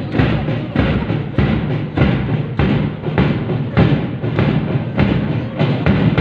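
Parade marching band playing a march, its bass drums keeping a steady, even beat.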